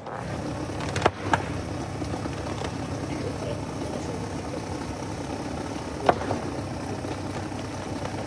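A steady engine or motor running with a low hum, starting suddenly, with a few sharp clicks about a second in and again about six seconds in.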